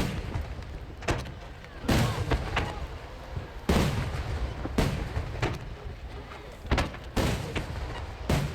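Large 10-inch (shakudama) aerial firework shells bursting in rapid succession. Each burst is a loud, dry, sharp bang followed by a low rumbling echo, coming about every one to two seconds, with fainter bursts in between.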